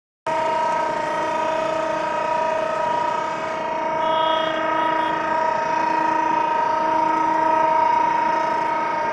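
Air horn of an EMD GT38ACL diesel-electric locomotive sounding one long blast at a steady pitch, cutting in abruptly.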